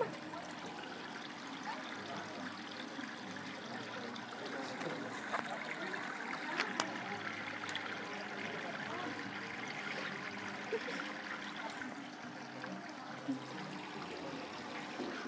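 Water trickling steadily in a fish-pedicure tank, with a few faint clicks and small splashes.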